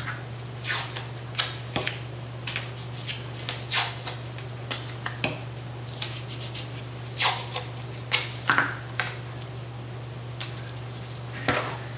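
Blue painter's tape being pulled off its roll and torn into short pieces, a series of short ripping sounds about every second, with pieces pressed down onto paper. A steady low hum runs underneath.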